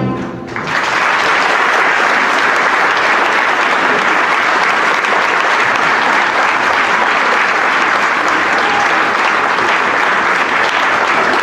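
A choir song with accompaniment ends on its last note, and about half a second later an audience breaks into steady, dense applause.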